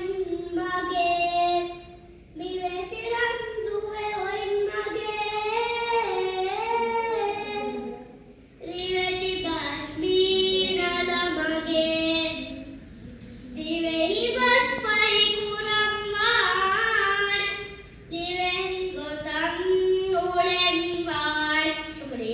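A boy singing raivaru, traditional Maldivian chanted verse in Dhivehi, solo and without accompaniment, in long wavering held phrases with short breaths between them.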